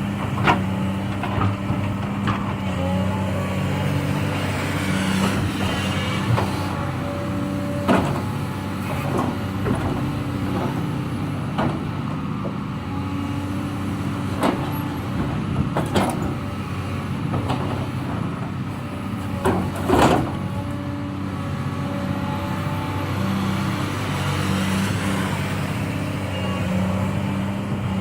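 Excavator's diesel engine running steadily while it loads logs onto a log truck, with scattered sharp knocks of logs striking one another and the truck, the loudest about twenty seconds in.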